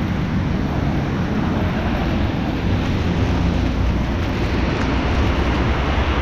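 Steady rushing noise of a bicycle ride in the rain, with a low rumble underneath from wind on the microphone and wet road noise.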